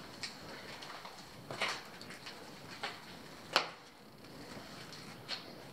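A few slow, irregular footsteps scuffing on a gritty concrete floor, the loudest about three and a half seconds in.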